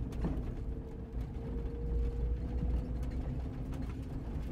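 Jeep Cherokee XJ driving slowly over a rough dirt trail: a steady low engine and drivetrain rumble with a faint steady whine, and scattered clicks and rattles from the vehicle as it jolts over the ground.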